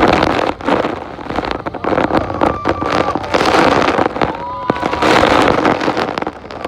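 Heavy waterfall spray and falling water drenching the boat and microphone, a dense rushing noise crackling with the hits of water. Several short, high shrieks from passengers rise above it.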